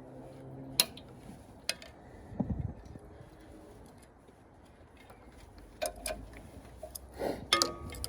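Scattered metallic clicks and taps of hand tools and parts being fitted to a car's rear axle beam, with a duller knock about two and a half seconds in and a cluster of clicks near the end.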